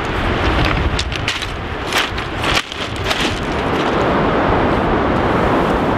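Wind buffeting the microphone: a loud, steady rush, with a few sharp crackles in the first half.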